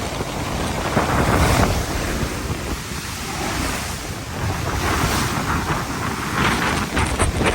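Strong, gusty typhoon wind buffeting the microphone over the roar of surf, swelling and easing every second or two.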